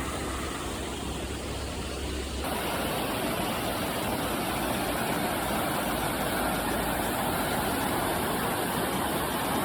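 Steady rush of a river flowing over boulders. About two seconds in it becomes fuller and a little louder.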